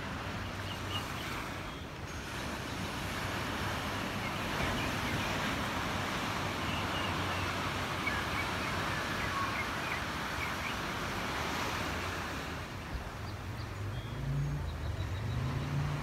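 Surf breaking and washing over the rocks and sand of a cove: a steady rush that swells through the middle. A low hum comes in near the end.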